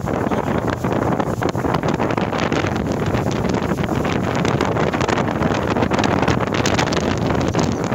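Wind buffeting the microphone on a moving pontoon boat: a loud, steady roar with gusty flutter.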